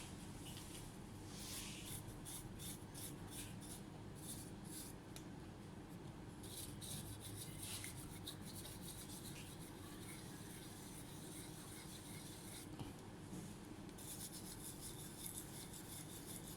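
Faint, repeated rubbing strokes, as of parts of the laptop being scrubbed clean, in quick runs near the start and again near the end.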